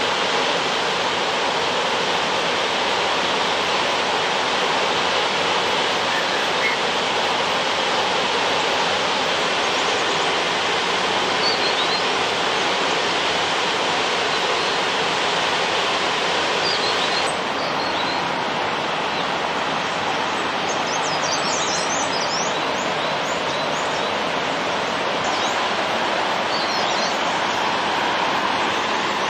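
Waterfall rushing steadily, with a few short bird chirps over it. A little over halfway through, the rush drops slightly and turns duller, and the chirps come more often.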